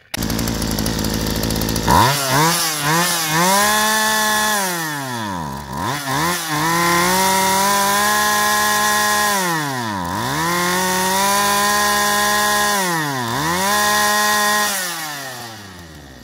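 Poulan Pro two-stroke chainsaw fed brake cleaner: after about two seconds of a steady rushing noise it fires and revs hard at high pitch, dropping back sharply three times between blips of the throttle, then fades away near the end.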